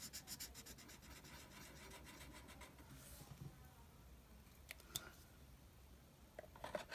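Marker scribbling on paper in quick, even strokes, colouring in a small area, which dies away after about a second. Then near silence, with two faint clicks about five seconds in.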